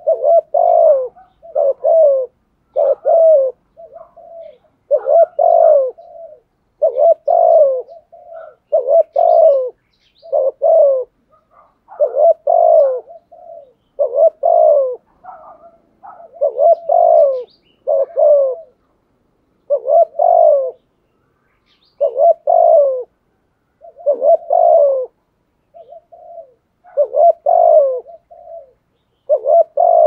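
Spotted dove cooing over and over: loud coos falling slightly in pitch, often in pairs, mixed with softer short coos, a phrase every second or two.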